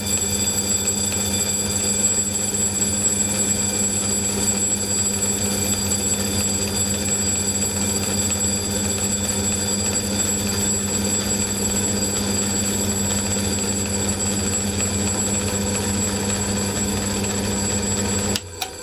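Electric rotary vacuum pump running with a steady hum while it draws the air out of a bell jar, the electric bell inside ringing only faintly because the air is mostly gone. The pump cuts off suddenly near the end when it is switched off at the wall.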